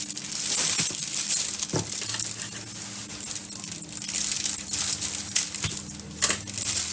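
Clear plastic wrapping crinkling and crackling as it is handled and pulled off a bag's metal chain strap.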